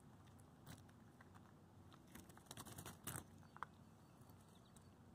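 Cavapoo puppies crunching dry kibble from a plastic bowl: faint, scattered crunches and clicks, with a short cluster of clicks about two to three seconds in.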